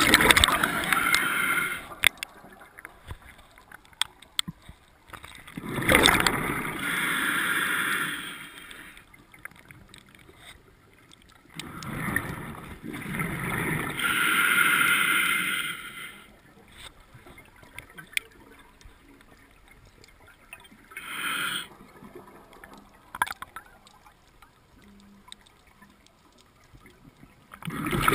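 A scuba diver's regulator exhaust bubbles, heard underwater through the camera housing: gurgling bursts of bubbles every few seconds, one per breath out, with quieter stretches between.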